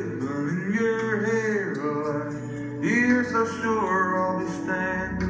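Recorded music with a male singer over instrumental accompaniment, played back from a Nagra III reel-to-reel tape recorder.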